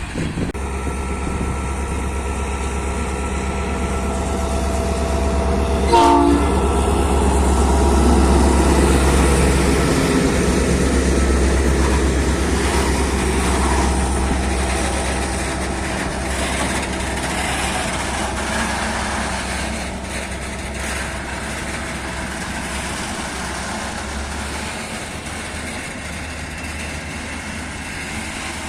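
Train horn sounding a steady chord as a train approaches, dropping sharply in pitch about six seconds in as the locomotive passes. The locomotive's low rumble and the rolling of railcars on the rails follow, loudest soon after and fading off near the end.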